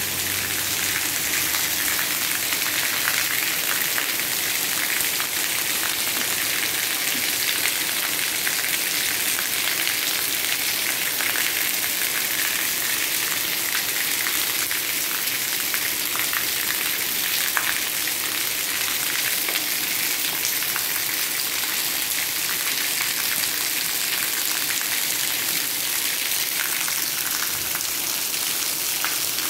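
Heavy rain falling steadily: a dense, even hiss with scattered sharper drop hits.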